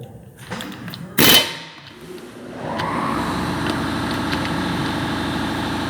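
A sharp metallic clang about a second in, then, from about halfway, an Ingersoll Rand 3/8" stubby pneumatic impact wrench hammering steadily on a seized lug nut without breaking it loose.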